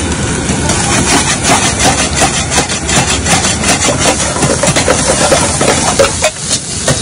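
Chopped onions sizzling in hot oil in a wok over a gas burner, while a metal ladle scrapes and clinks against the pan.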